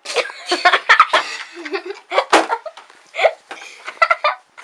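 Boys laughing and snickering in a run of short, uneven bursts, with a sharp smack about two seconds in.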